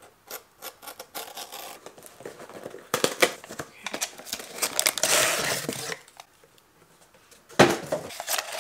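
Small scissors snipping through the tape and cardboard of a small box, a run of quick clicks. Then cardboard flaps are torn and pulled open with rustling, and near the end the cardboard insert scrapes as the packed item is pulled out.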